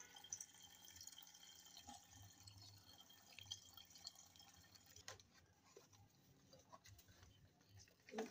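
Faint trickle and splash of milk pouring from a plastic pouch into a stainless steel saucepan, with a brief knock near the end.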